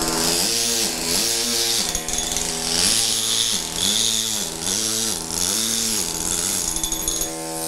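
Pneumatic stone-carving hammer driving a tooth chisel into marble: a continuous rapid buzz of blows with hissing air, its pitch rising and falling over and over. It stops shortly before the end.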